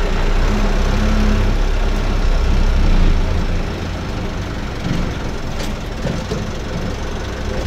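Minibus engine running with road noise, heard from inside the cabin while driving: a steady low rumble that eases a little about halfway through.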